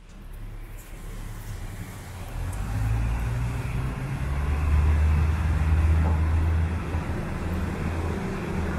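City street traffic in the rain: a low vehicle engine rumble swells through the middle and eases near the end, over a steady hiss from the wet street.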